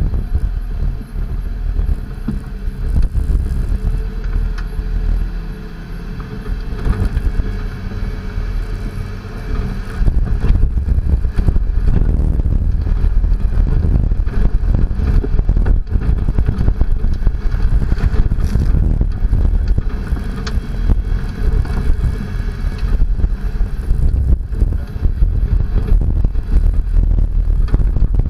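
Toyota Tacoma prerunner pickup being driven over a dirt and gravel rally course: the engine running under load with the rumble of tyres on the rough surface. The rumble grows louder and rougher about ten seconds in.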